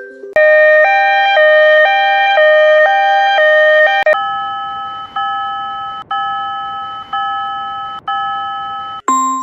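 Railroad crossing warning signal: a two-tone alarm alternates high and low about twice a second. About four seconds in, it changes to a ringing bell tone struck about once a second, each ring fading before the next.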